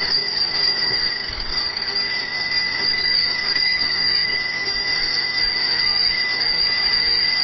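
Bicycle bell ringing continuously, a steady high ringing with no separate strikes to be heard.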